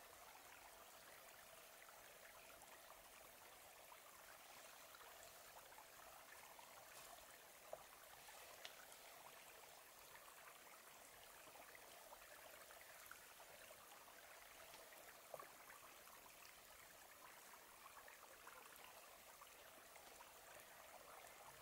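Near silence: a faint, steady outdoor hiss, with a few faint clicks.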